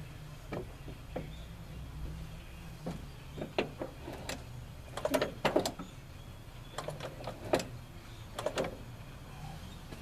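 Carburetor throttle linkage and throttle cable being worked from the accelerator pedal: a series of light clicks and clunks as the throttle is pulled open and snaps back, in clusters, the loudest about halfway through.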